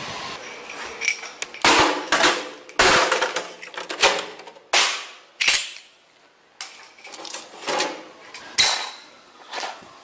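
A series of loud, sharp bangs or knocks, about a dozen, irregularly spaced.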